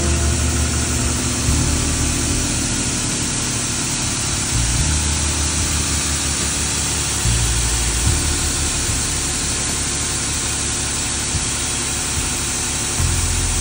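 Automated rug-washing machine running: a steady hiss of water spraying from its row of nozzles onto a rug, over the low hum of the machine, which shifts in pitch a few times.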